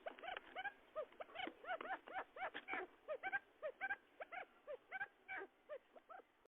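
Quail calls used as a lure for wild quail: a rapid, overlapping run of short arched chirping notes, several a second, that cuts off abruptly near the end.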